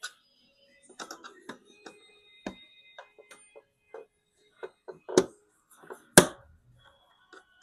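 Scattered clicks, taps and light scrapes of small tools and hands working on the plastic casing of an Xbox Series X during disassembly, with two sharper knocks about five and six seconds in.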